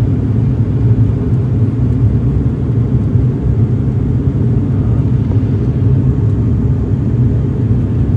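Steady low rumble of a vehicle on the move, heard from inside: engine and road noise with no distinct events.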